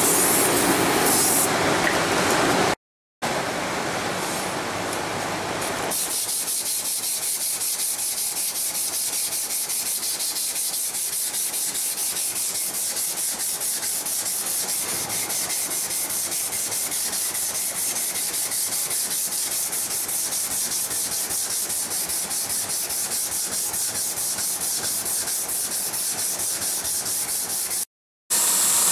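WD-40 hissing out of an aerosol can onto a rusty carbon-steel chef's knife blade for the first few seconds, to loosen the rust. Then a long, even hiss as the blade is sanded by hand with a sanding block.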